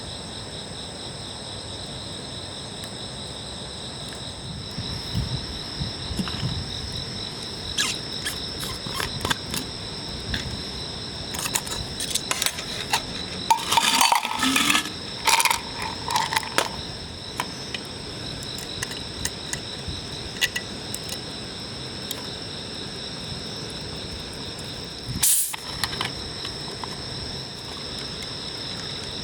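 Crickets and other insects trilling steadily. About a third of the way in comes a run of light clicks and clinks, and a single sharp click follows near the end.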